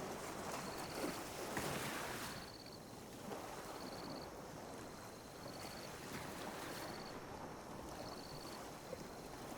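Calm sea waves lapping on a beach, one wave washing in more loudly in the first couple of seconds and then settling to a soft, steady wash. A faint high trill repeats about once a second.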